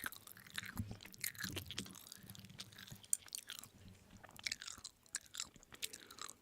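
Close-miked chewing and mouth sounds of a person eating, with many short wet clicks and smacks.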